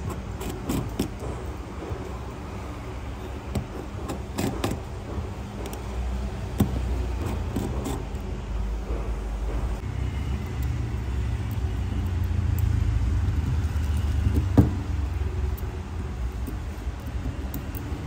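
Small clicks and taps of a screwdriver and fingers on the screws and plastic frame of an opened smartphone, thickest in the first few seconds, over a low steady rumble that grows louder in the second half. One sharp tap stands out about three-quarters of the way through.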